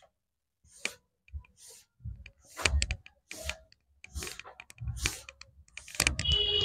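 Blackboard being wiped clean in a run of quick scrubbing strokes with light knocks against the board, starting about two seconds in after a few scattered ticks.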